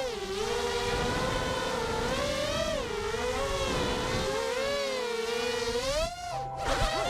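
FPV racing quadcopter's brushless motors and propellers whining, the pitch rising and falling as the throttle changes.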